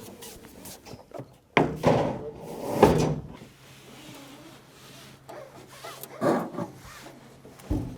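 Knocks and scrapes of a heavy loudspeaker cabinet being shifted and set into position, three loud bumps: about a second and a half in, around three seconds in, and a little after six seconds.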